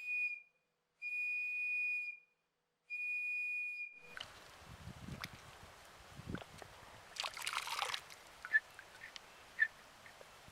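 Three long, steady high-pitched tones, each about a second, with dead silence between them. After that comes a faint outdoor background with a burst of rustling and a few short high chirps.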